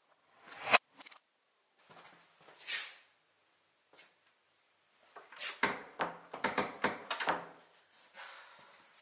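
Door handle pressed and latch clicking sharply under a second in, then a soft rush of air as the door swings. Later comes a rapid run of clicks and knocks from a door handle and latch lasting about two seconds, followed by another soft whoosh.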